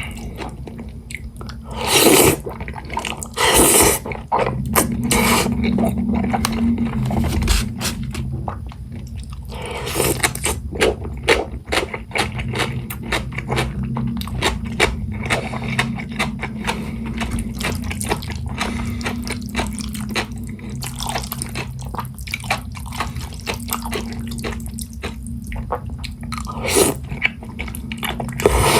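Jajangmyeon noodles slurped in about four loud draws, with wet chewing and smacking clicks in between.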